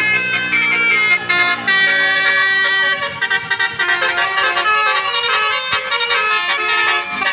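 Indonesian 'telolet' musical bus horn playing a tune: loud, reedy multi-tone horn notes switching quickly from pitch to pitch.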